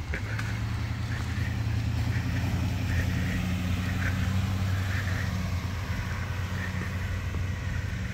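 A truck's engine humming low as it goes by, growing louder over the first few seconds and easing off toward the end.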